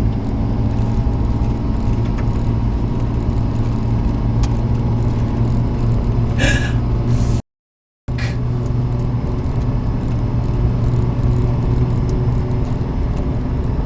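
Nissan Stagea's turbocharged straight-six running at a steady cruise, with engine and road noise inside the cabin. There is no revving and the pitch is even. The sound cuts out completely for about half a second midway.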